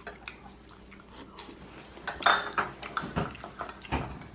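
Eating sounds: chewing, with scattered clinks of cutlery on dishes coming in short irregular bursts.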